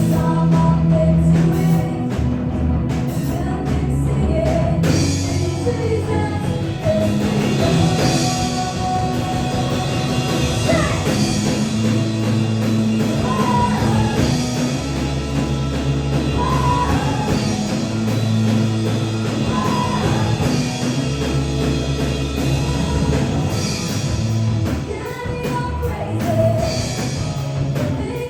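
A rock-style song with a singer and a full band, with a steady bass line under the vocal melody.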